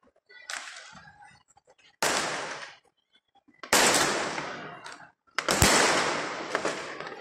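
Fireworks bursting in the sky: one faint bang, then three loud bangs about a second and a half apart, each fading away slowly over about a second.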